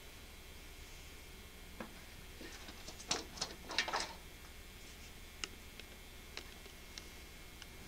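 Faint clicks and light taps at the window: a quick cluster of them about three to four seconds in, then a few single ticks about a second apart.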